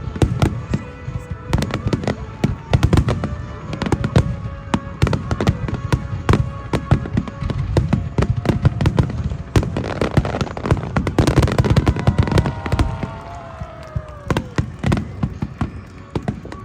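Fireworks display: a dense, continuous barrage of bangs and crackling bursts with deep booms.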